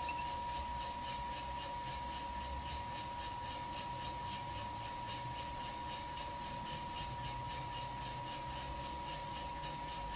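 Kaleido M10 Sniper Pro electric drum coffee roaster running: beans tumbling and rasping in the rotating drum over the hum of the fan, with a steady high whine and a rapid, regular swish several times a second. The beans are in the drying stage and just turning yellow.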